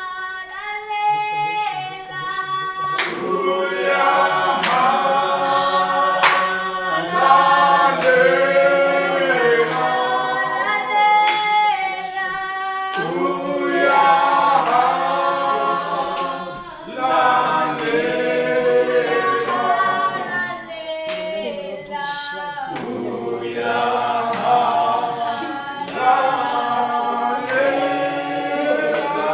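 A group of voices singing a gospel song together without instruments, in long held phrases with short breaks between them, and a few sharp knocks.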